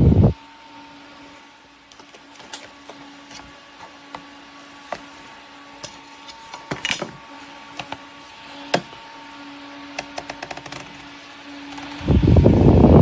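Clip-on fan's airflow rushing over the microphone cuts off just after the start, leaving a faint steady hum with scattered small clicks and taps. The rushing air comes back about a second before the end.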